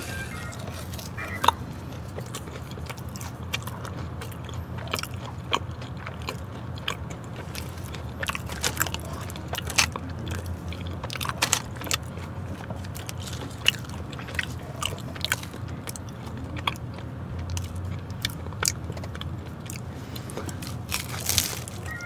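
Close-up eating sounds: crunchy bites and chewing of crispy seasoned Korean fried chicken and cheese balls, with sharp crackly crunches scattered irregularly throughout over a low steady hum.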